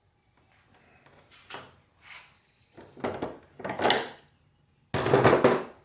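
A series of short rubbing and scraping strokes as a hand wipes across a plastic shower pan around a freshly fitted drain, clearing away excess silicone. There are about five swipes, and the loudest and longest comes near the end.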